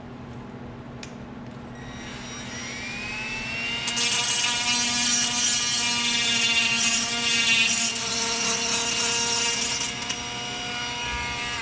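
Handheld rotary tool grinding the edge of a round cut-out in a panel. Its motor whine rises in pitch about two seconds in, then holds steady over a grinding hiss, and winds down at the very end.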